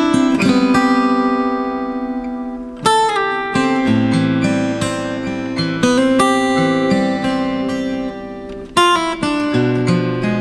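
Background music on acoustic guitar: plucked and strummed chords that ring out, with a fresh strum about every three seconds.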